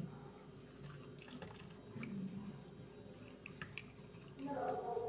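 A white cup being hand-washed in a stainless steel sink: faint wet rubbing and handling with a few light clicks and taps.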